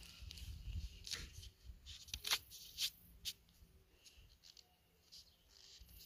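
Faint rustling with several short, sharp crackles in the first half, the sound of a hand and the phone moving close against dry grass and the crumbling bark of a dead pine log.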